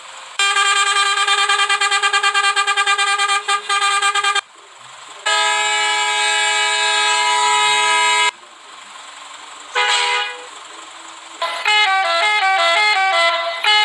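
Repaired three-trumpet vehicle horn tuned to the Hino RK bus style, sounding a series of blasts: a long one-note blast that breaks into quick stutters near its end, a long held chord of several tones, a short toot, and then a fast run of alternating notes.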